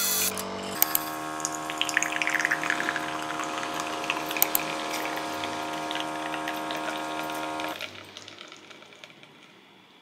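Espresso machine pump running with a steady hum as coffee streams into a glass. It cuts off suddenly near eight seconds in, leaving faint drips.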